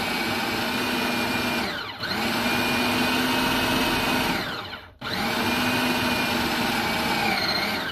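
Food processor pulsing pie-crust dough, its motor whirring in three runs. It winds down and spins back up about two seconds in and again about five seconds in, churning the crumbly flour-and-butter mix with ice water until it starts to come together into a ball.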